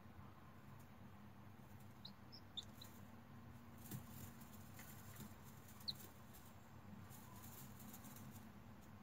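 Hatching chick peeping faintly from inside its broken eggshell: a quick cluster of short, high peeps about two seconds in and a single peep near six seconds, over a low steady hum and faint crackles.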